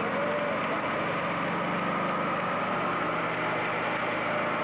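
Car engine held at high revs while the rear tyres spin in a burnout, a steady dense noise with a faint high squeal running through it.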